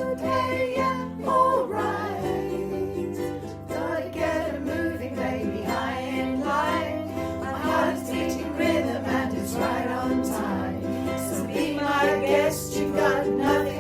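Upbeat acoustic song: strummed ukulele with a bass line under a gliding melody line.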